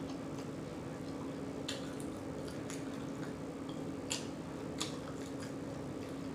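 Close-up chewing of a barbecue bacon slider, with several sharp wet mouth smacks, the loudest about four seconds in, over a steady low hum.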